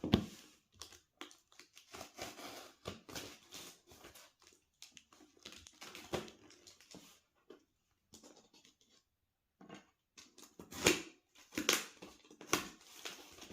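A taped cardboard box being handled: a run of short rustles, crinkles and scrapes of cardboard and packing tape, with a short pause and a few sharper knocks near the end.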